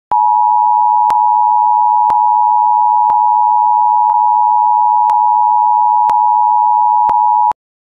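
Emergency Alert System attention signal: two steady tones sounding together just under 1 kHz (853 and 960 Hz), held for about seven and a half seconds and then cut off sharply. Faint ticks fall about once a second.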